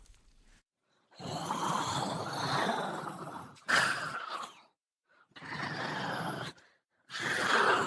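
Raspy, breathy groans, a horror sound effect of a creature or person, in four long rough breaths with short silences between them.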